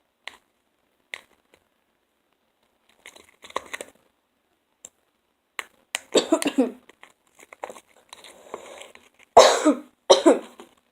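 A person coughing a few times in the second half, three short loud coughs. Between them, faint sticky clicks and squelches of a spoon stirring slime in a container.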